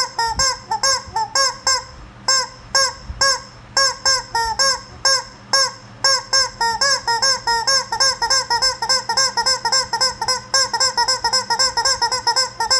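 Rubber chicken squeeze toy squeezed over and over, each squeeze a short honking squawk that rises and falls in pitch. The squawks come several a second, with a short pause about two seconds in, then run on faster.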